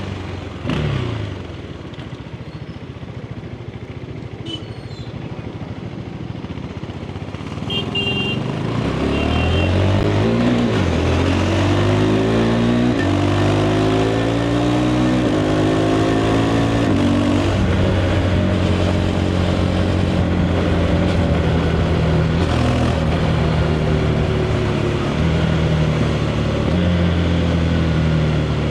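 KTM 390 Adventure's single-cylinder engine through its stock exhaust. The engine runs low and quiet at first. About eight seconds in it pulls hard, rising in pitch through several quick upshifts, then settles into a steady cruise.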